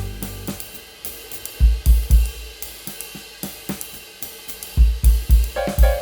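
Background music: a drum break of kick drum, snare and cymbals, with the melody dropping out and returning near the end.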